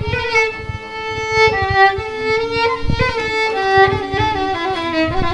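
Solo violin playing a slow melody of long held notes, one after another.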